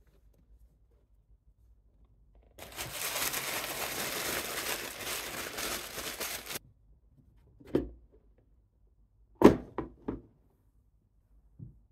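Tissue wrapping paper crinkling and rustling for about four seconds as it is handled in a shoe box. This is followed by a handful of sharp knocks, the loudest about nine and a half seconds in, as the shoes and cardboard box are handled.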